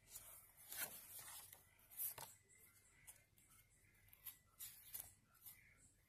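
Paper pages of a journal being turned by hand: a series of faint, brief paper rustles and swishes, the loudest about one and two seconds in.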